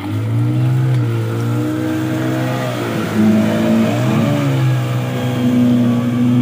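Outboard motor of a small boat running at high revs as it passes close by, suddenly getting loud at the start; its pitch dips and wavers about three to four seconds in, then holds steady.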